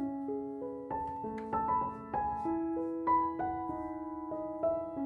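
Background music: a gentle, slow piano melody, one note after another with chords sustained beneath.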